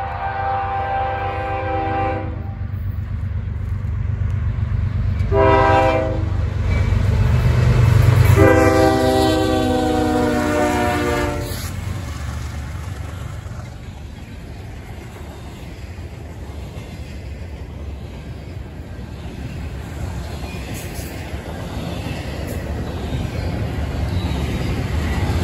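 CSX freight locomotive horn sounding three blasts, a long one, a short one and a longer last one whose pitch drops slightly, over the steady low rumble of the train passing.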